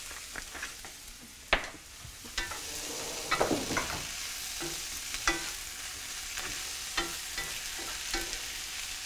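Chopped vegetables frying and sizzling in a cast-iron skillet as they are stirred, with several short knocks and scrapes of the utensil against the pan. The sizzle grows stronger about two seconds in.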